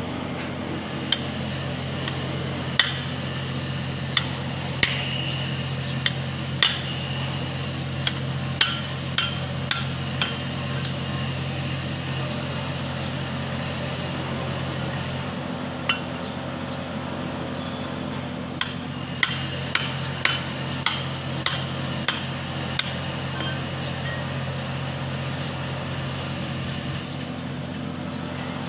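Metal parts of a tractor front-axle final-drive housing clinking and knocking together as they are handled and separated, heard as sharp metallic taps. There is a run of about a dozen in the first ten seconds, then a pause, then another handful later, over a steady low hum.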